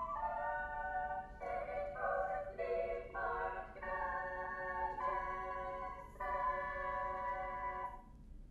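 Music from a contemporary opera excerpt: a slow series of sustained chords, each held for about a second before moving to the next, ending about eight seconds in.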